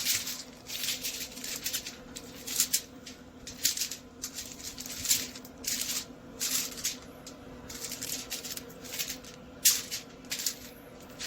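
Irregular clicks and rustles of ribs being handled and rearranged, over a faint steady hum.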